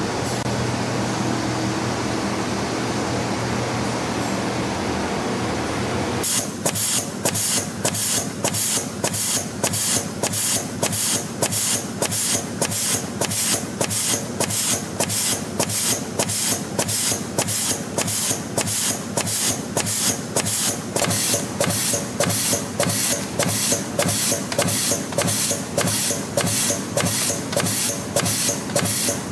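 YHM PR-13 CNC piston ring and wave spring machine running, first as a steady hum, then from about six seconds in with evenly spaced sharp strokes a little under two a second. The stroke rate matches its output of about 100 retaining rings a minute, one stroke per ring.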